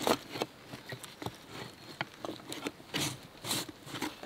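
Knife cutting into a whole smoked turkey, crunching through the crisp skin and joints in short, irregular snaps and crackles.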